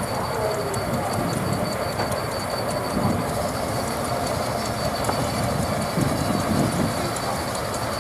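Steam traction engine running steadily, driving a circular saw bench through a long flat belt, with a thin steady high tone over the mechanical noise.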